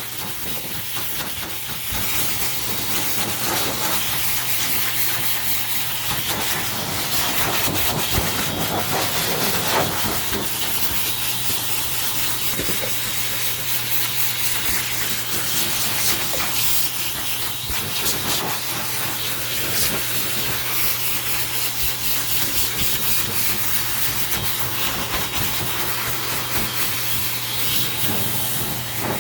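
Hand-held hair dryer running steadily, a continuous rush of air with a low steady motor hum beneath it, blowing on a freshly shampooed puppy's coat.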